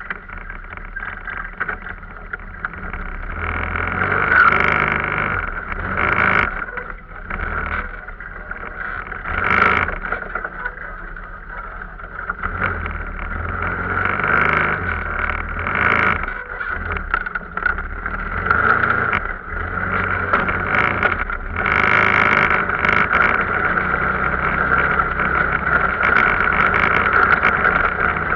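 Arctic Cat off-road vehicle engine running under way, its level swelling and dipping as the throttle changes.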